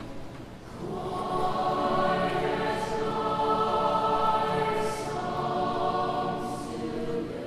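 Background choral music: a choir singing long, held chords.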